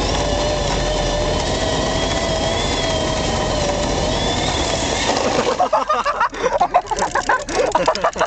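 A car running on the road, a steady rush of engine and road noise with a faint wavering whine. About five and a half seconds in the steady noise drops away suddenly, giving way to choppy, uneven sounds.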